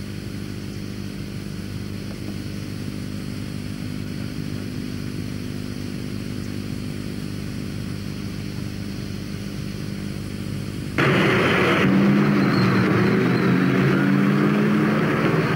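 A steady drone of unchanging pitch. About eleven seconds in it cuts sharply to louder outdoor sound: a crowd's voices mixed with vehicle noise.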